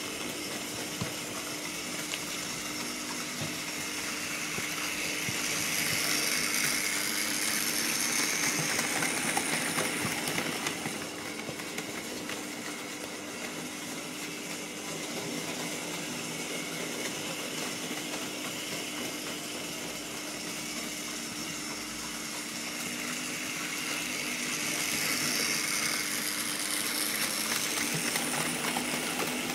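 Vintage Märklin model trains running on the layout: a steady mechanical whirr of their motors and wheels on the track, growing louder as a train passes close, about five to ten seconds in and again near the end.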